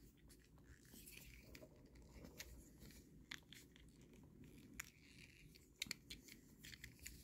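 Faint clicks and light scraping of a small plastic Transformers figure being turned and pressed together by hand, as its car-mode parts are pushed into place. The clicks are a few sharp ticks spread out over the seconds, with near silence between them.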